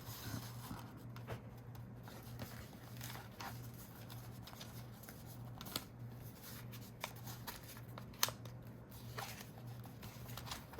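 Faint paper handling: cardstock tags and paper rustling and sliding into a folder's pockets, with a few light sharp ticks, over a steady low hum.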